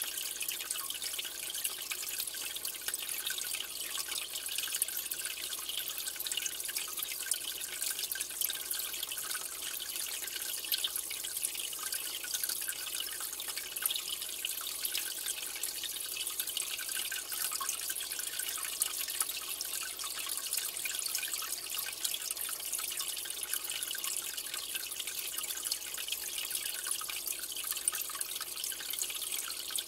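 Aquarium water trickling and bubbling steadily, with a fine crackle of drips.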